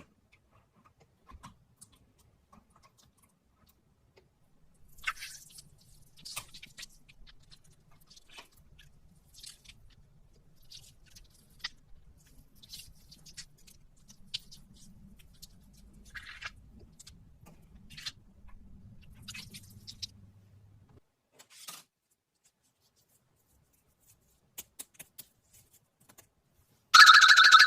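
Sparse, soft crackles and clicks of close-up ASMR handling, over a faint low hum. Near the end a loud, steady high-pitched tone starts abruptly.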